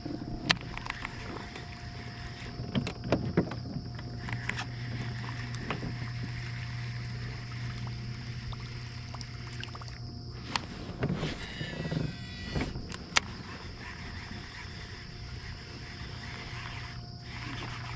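Fishing kayak on the water: a steady low hum with a few sharp knocks and clicks scattered through, several of them close together about two-thirds of the way in.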